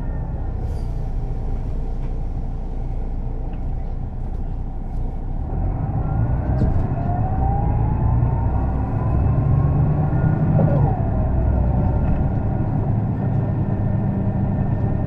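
1999 Setra S 315 NF bus with ZF gearbox accelerating: the engine drone grows louder and a gear whine rises in pitch for several seconds, then breaks and drops about eleven seconds in as the gearbox shifts, before running on steadily.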